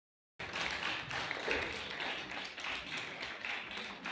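Dense, irregular hand-clapping, after a brief dead-silent dropout at the very start.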